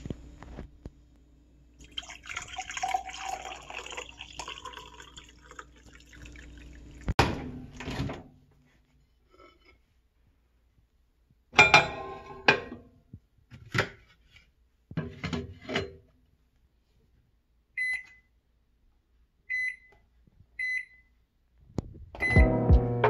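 Hot water poured from an electric kettle into a ceramic mug. Then knocks and clatter as a plate goes into a microwave oven, followed by three short beeps from the microwave's keypad as it is set.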